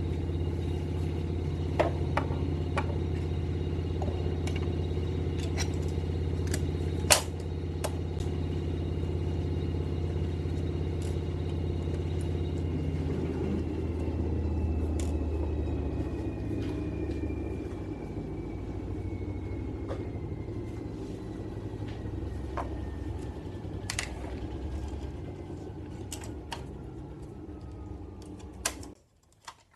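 Drill press motor running with a steady hum and whine, with scattered clicks and taps; about halfway through it is switched off, and its whine falls slowly as the spindle coasts down, until the sound cuts off suddenly near the end.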